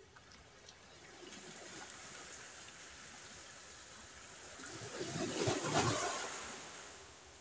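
Sea waves washing on the shore: a rush of noise that builds from about a second in, swells to its loudest a little past the middle, and fades away near the end.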